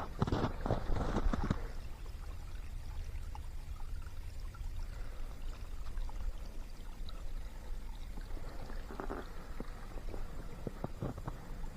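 Water running in a forest stream, a steady flowing trickle. A run of short crunching steps sounds over it in the first two seconds and again about nine to eleven seconds in.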